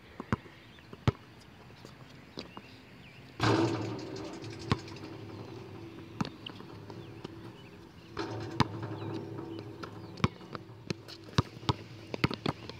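A basketball bouncing on an outdoor hard court: sharp, separate thuds at uneven intervals, coming quicker near the end. Two stretches of rushing noise start about three and eight seconds in.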